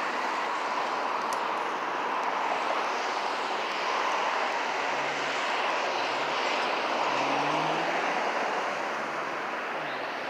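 Steady road traffic noise from cars passing on a busy street, with a vehicle's engine rising in pitch as it accelerates about seven seconds in.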